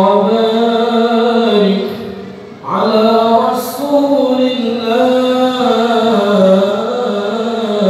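A man reciting the Quran in Arabic in the melodic tilawah style into a handheld microphone. He holds long, ornamented notes that waver up and down, with a short breath break about two and a half seconds in.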